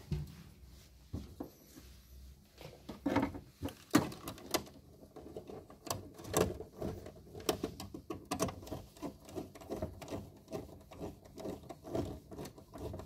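Irregular small clicks, taps and scrapes as a wire is worked into a DIN-rail time relay's screw terminal and the terminal is tightened with a small screwdriver.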